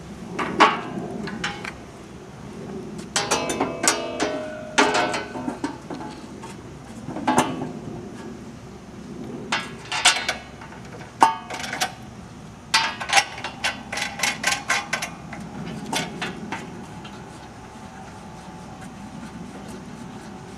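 Sheet-metal belt cover of a Scag V-Ride II mower deck clanking and rattling as it is set down and fitted into place over the deck, in irregular clusters of sharp metal knocks.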